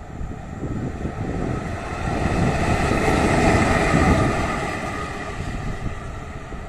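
Škoda 181 electric locomotive running light past at speed: wheels rumbling on the rails with a steady whine, growing loudest about three to four seconds in as it passes close by, then fading as it goes away.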